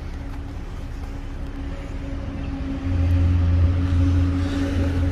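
SUV engine idling, a steady low exhaust hum that grows louder and fuller about three seconds in as the microphone passes close to the tailpipes.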